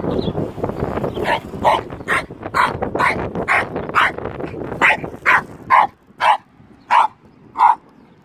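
Miniature Jack Russell terrier barking at a large stick in a rapid run of short, sharp barks, about two a second. Wind rumbles on the microphone at first.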